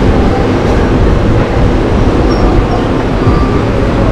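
Smoothie blender machine running, a loud steady rumble as the strawberry smoothie is blended.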